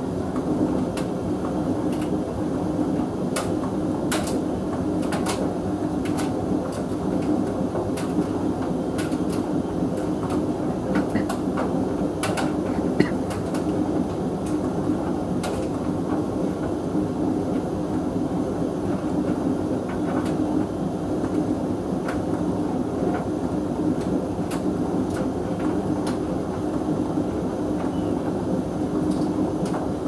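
Hoover VHV680C vented tumble dryer running, its drum and fan giving a steady drone with a low hum. Scattered light clicks come and go, most of them in the first half.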